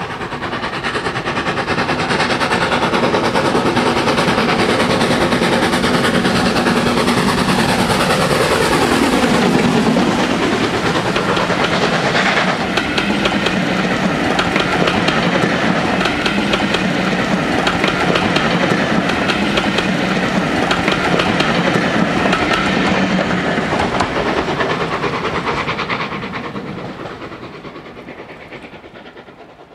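Full-size steam train passing at speed. The pitch falls sharply as the locomotive goes by about nine seconds in, then the coaches follow with a steady clickety-clack of wheels over rail joints, fading away near the end.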